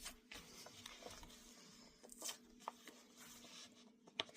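Faint, scattered scraping and ticking of a knife working through a book's glued paper spine, with paper tearing softly.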